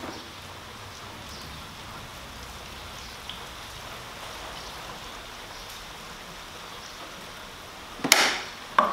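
Gasoline pouring in a steady stream from a plastic gas can into a string trimmer's fuel tank, an even watery hiss. Near the end there is a loud knock and then a smaller one.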